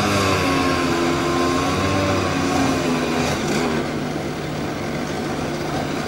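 Small two-stroke chainsaw engine running, its pitch sliding down over the first couple of seconds, rising and falling briefly again a little past halfway, then carrying on a bit lower and quieter.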